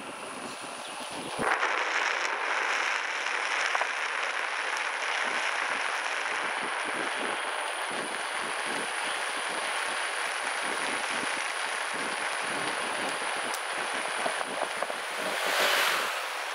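Steady rushing noise of riding along on a unicycle, mostly wind over the camera's microphone. A motor scooter passing gives a louder swell near the end.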